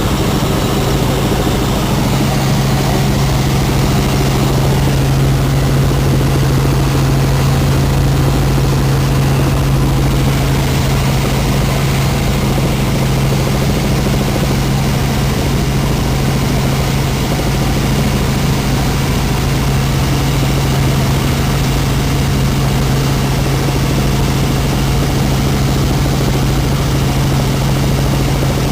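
Helicopter engine and rotor noise: a loud, steady drone with a strong low hum that doesn't change.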